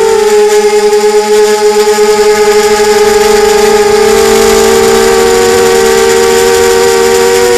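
FPV quadcopter's motors and propellers whining at a steady pitch under even throttle, with a wavering beat in the first two or three seconds as the motors run at slightly different speeds.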